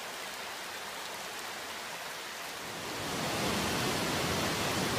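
Creek water rushing steadily over rocks, growing louder and fuller about three seconds in.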